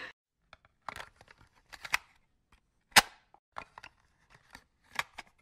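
An intro sound effect of sharp, irregular clicks and pops, about a dozen in all, with one much louder pop about three seconds in.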